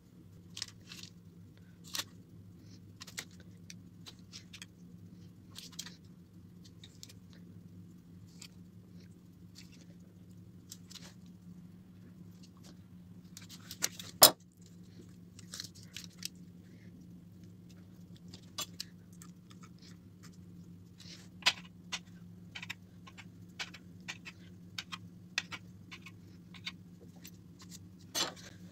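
Small kitchen knife scoring lines into raw dough on a parchment-lined baking tray: scattered faint scratches and light taps, with one sharp click about halfway through. A steady low hum runs underneath.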